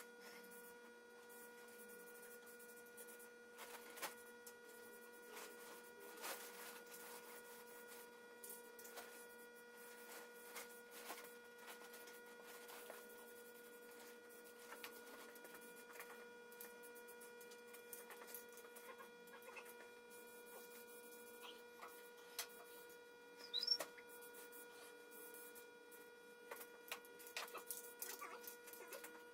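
Faint, steady electrical buzz on one pitch with overtones, under scattered soft clicks and knocks, with one brief sharper sound about 24 seconds in.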